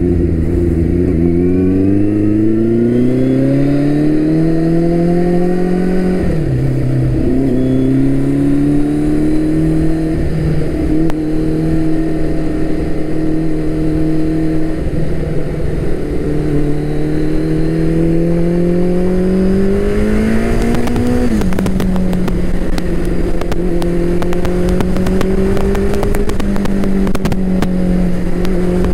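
Turbocharged Suzuki Hayabusa's inline-four engine pulling through the gears. The revs climb for about six seconds and fall at an upshift, hold, then climb again and fall at a second upshift about twenty seconds in, before settling to a steady cruise. Wind rushes over the helmet-mounted microphone, louder once the bike is at freeway speed.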